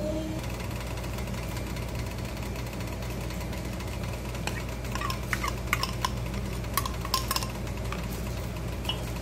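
A metal spoon scraping and clinking against a small plate and a bowl while moving boiled garlic into butter: a cluster of short clicks with light ringing, starting about halfway through and stopping about two-thirds of the way in. Under it runs a steady low hum.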